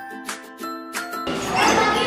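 Short, bright intro jingle of plucked, bell-like notes. A little over a second in it gives way to a louder voice speaking.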